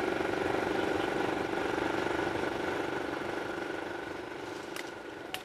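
A small motor vehicle's engine running steadily as it travels, fading away near the end, with a couple of faint clicks just before it ends.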